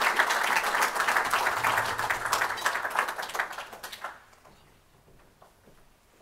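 Audience applauding, many people clapping together; the applause fades and has died away about four seconds in, leaving only a few faint taps.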